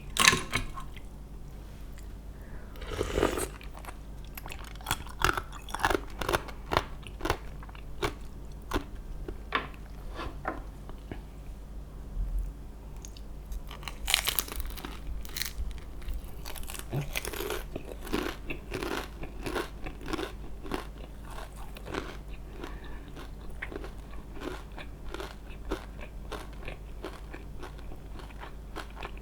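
Close-miked eating: a person biting and chewing crunchy food, with a rapid run of sharp crunches and crackles and a few louder bites.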